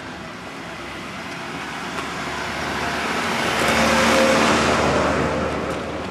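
A car passing close by on a street: tyre and engine noise building steadily, loudest about two thirds of the way through, then fading away.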